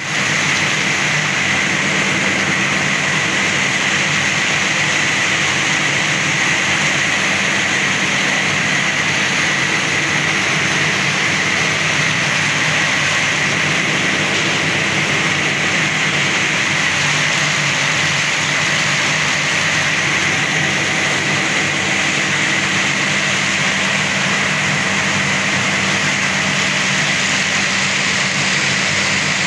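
Circular loom weaving tubular fabric, running steadily and loudly: a continuous machine noise with a steady high tone through it.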